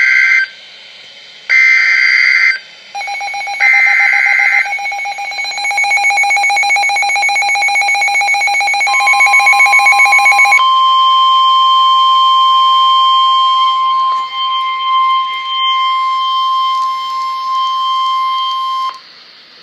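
Emergency Alert System signal: three short screeching SAME header data bursts, then a rapidly pulsing electronic alarm tone. About nine seconds in, the steady single-pitch 1050 Hz weather-radio warning tone joins and runs on alone until it cuts off near the end.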